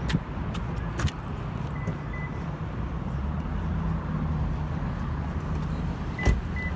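Steady low rumble of motor vehicles, with a few sharp clicks, the loudest near the end.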